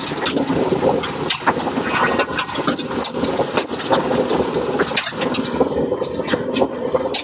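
Solid, clear tube-ice cylinders clattering and clinking as they drop out of a tube ice machine's outlet onto a heap of ice in the hopper, a rapid irregular stream of impacts. Under it runs the machine's steady mechanical noise.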